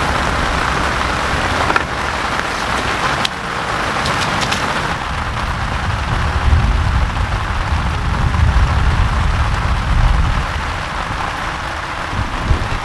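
Heavy rain falling steadily in a thunderstorm, with a low rumble that swells through the middle and a few sharp taps of drops in the first few seconds.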